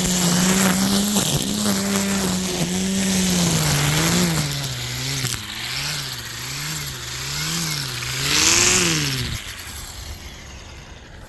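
EGO 56-volt cordless string trimmer (multi-tool head with trimmer attachment) cutting grass: a steady electric motor whine with the hiss of the spinning line. From about four seconds in, the pitch dips and wavers up and down about once a second. It rises briefly, then cuts off and winds down about nine seconds in.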